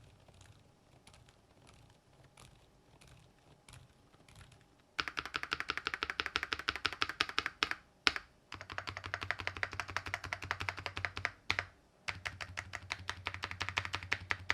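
Typing on a Keychron K10 Pro Max full-size mechanical keyboard. It starts with faint, scattered key taps, then about five seconds in turns to fast, continuous, much louder keystrokes, with brief pauses near the middle.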